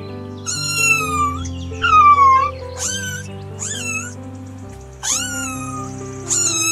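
A cat meowing about six times in quick succession, high calls that bend up and down in pitch, over soft background music.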